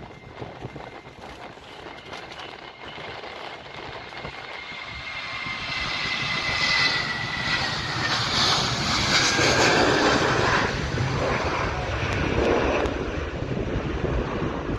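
Jet airliner engines running, growing louder over the first half and then staying loud, with a high whine that slowly falls in pitch.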